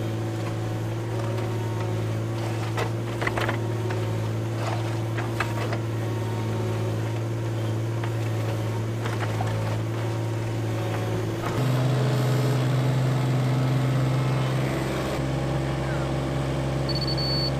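Case CX17C mini-excavator's diesel engine running steadily under digging load, with knocks and scrapes of the bucket in the dirt; about 11 seconds in the engine note steps up in pitch and grows louder. Near the end a laser level receiver gives a rapid series of high beeps.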